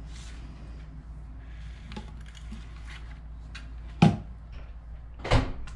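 Chef's knife cutting cooked duck breast on a plastic cutting board: faint small clicks, then a sharp knock of the blade on the board about four seconds in and another near the end, over a low steady hum.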